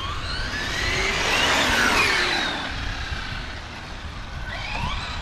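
Electric brushless RC car driving at speed. Its motor whine rises in pitch, is loudest about two seconds in, then falls away, and a new rising whine starts near the end.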